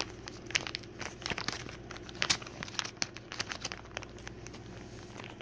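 Product packaging being torn open by hand: irregular crinkling and tearing, with the sharpest crackle a little over two seconds in.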